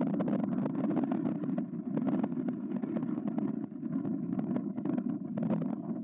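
An engine running steadily with a rough, crackling rattle.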